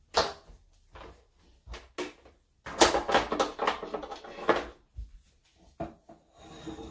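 Objects being handled on a kitchen countertop: several sharp taps and knocks, with a busier stretch of rubbing and rustling in the middle as things are moved and wiped around a coffee maker.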